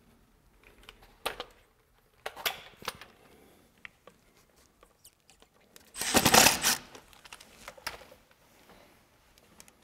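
Light scattered clicks and taps of hand work on a boat's aluminium transom: dabbing marine silicone over a screw hole and driving the screw of a transducer cord clamp. About six seconds in comes one louder, noisy scrape-like burst lasting under a second.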